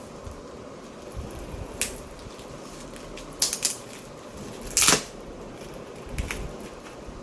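Hand-handling noises from unboxing a packaged item: a few scattered clicks and knocks. The loudest is a short scrape just before five seconds in, with another click about six seconds in.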